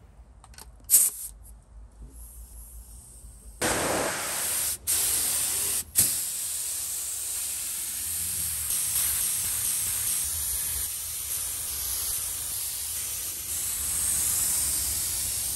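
Air spray gun spraying paint: a short hiss about a second in, then from about four seconds a loud, steady hiss. The hiss breaks off twice for an instant soon after it starts, as the trigger is let off.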